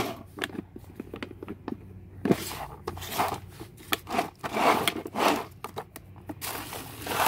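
Plastic storage drawer being slid and handled, scraping and clicking. Clear plastic bags of bead and pearl necklaces crinkle as they are handled.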